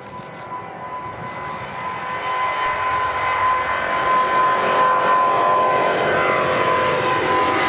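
Twin GE90 turbofans of a Boeing 777-200ER at takeoff power as it climbs out toward the listener: a roar that grows louder over the first five seconds and then holds, with a steady high fan whine running through it.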